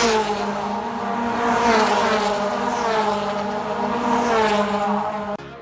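V8 race cars at speed passing one after another. Their engine notes swell and fall as each goes by, about two, three and four and a half seconds in. The sound cuts off just before the end.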